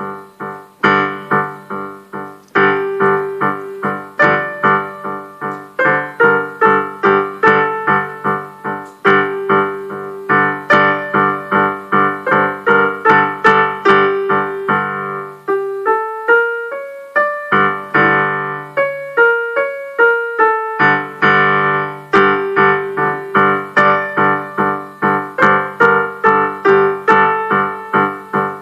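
Electronic keyboard played with a piano sound: a steady pattern of repeated low chords under a treble melody. About halfway through, the low notes stop for some five seconds while a single line of notes steps down and back up, then the full pattern returns.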